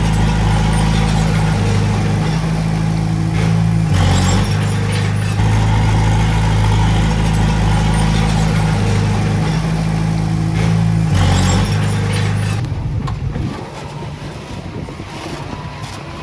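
Heavy-equipment diesel engine running steadily under power. Its pitch shifts briefly about 4 and 11 seconds in, then the engine sound falls away about 13 seconds in, leaving quieter rumbling noise.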